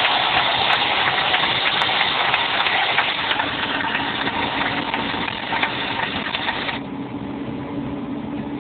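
PistenBully snow groomer's diesel engine running. About seven seconds in the higher-pitched noise drops away, leaving a lower, steady engine hum.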